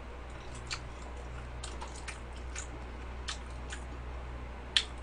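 Close-miked wet mouth clicks and lip smacks of chewing soft cheesecake, with a sharper click near the end, over a low steady hum.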